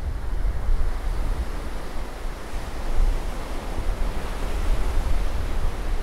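Ocean surf breaking and washing up a sandy beach, a continuous rushing wash that swells and eases. Wind rumbles on the microphone underneath.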